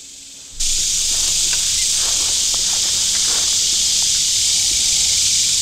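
Steady, high-pitched buzzing chorus of insects, starting suddenly about half a second in.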